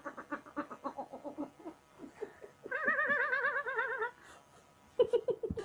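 A person giggling in quick, high pulses that fade out, then a long wavering high-pitched squeal of laughter about halfway through, and a few more giggles near the end.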